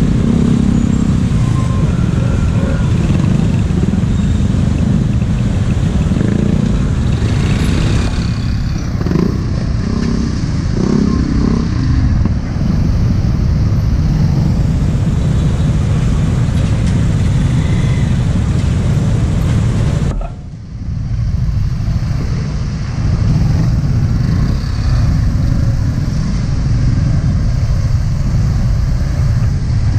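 Motorcycle and scooter engines idling and creeping forward in heavy stop-and-go traffic, with a steady low rumble of road traffic.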